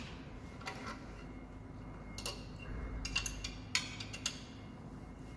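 Scattered light metallic clicks and taps as hands handle small parts on the metal Z-axis lift column of a laser marking machine. There are a couple of clicks about a second in and a denser run of them between about two and four and a half seconds in.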